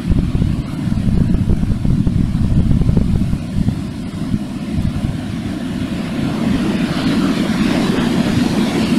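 Wind buffeting the camera microphone: a loud, gusty, uneven rumble, with a hissier rush of wind building near the end.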